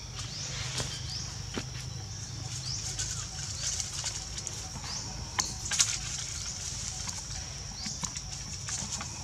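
Outdoor background: a steady high-pitched drone with short rising notes every second or two, and scattered sharp clicks and taps.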